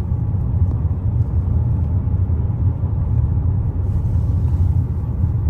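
Steady, loud low rumble.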